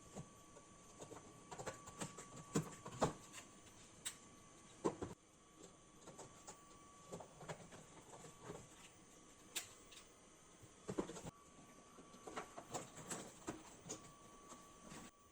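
Scattered small clicks and light knocks at irregular intervals: hands handling desktop PC parts while fitting DDR4 RAM sticks onto motherboards, with a faint steady tone in the background at times.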